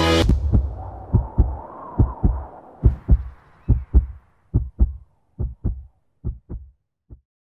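Heartbeat sound effect: pairs of low thumps, about one pair a second, fading away to a last single thump near the end. The music cuts off at the start and its echo dies away over the first few seconds.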